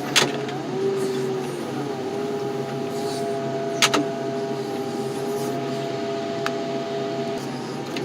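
Heavy hydraulic equipment running steadily, its engine and hydraulic pump holding a steady whine that dips briefly in pitch near the start as it takes load. Two sharp metal clanks, about a second in and about four seconds in, as the machine works the engine out of the car.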